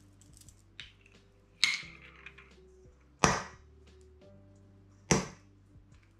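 Three sharp cracks about a second and a half apart, the middle one loudest: eggs being knocked against the rim of a mixing bowl to break them.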